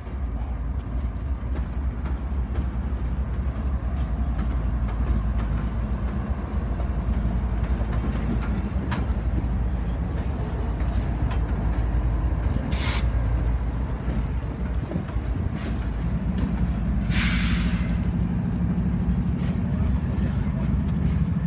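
Diesel-electric freight locomotives running close by with a deep, steady rumble. There is a short hiss of released air about 13 seconds in and a longer hiss around 17 seconds, typical of air brakes venting. The engine note grows stronger from about 16 seconds on.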